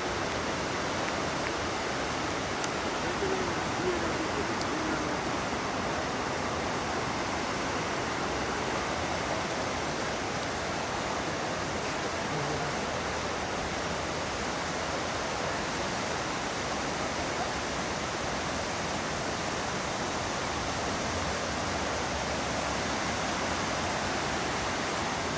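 Kapuzbaşı waterfall rushing: a steady, unbroken noise of falling water.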